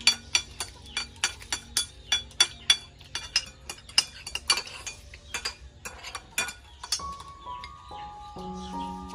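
Metal spoons and forks clinking and scraping against ceramic plates as children eat rice, in quick irregular clinks. The clinks thin out about seven seconds in, and background music with held notes comes in.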